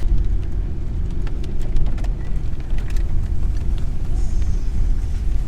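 SUV driving slowly over a rough dirt trail, heard from inside the cabin: a steady low engine and road rumble with scattered clicks and knocks.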